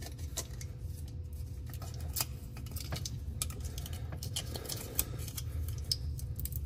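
Aluminum foil tape being handled, peeled and pressed on by hand: scattered light clicks and crinkles over a low steady hum.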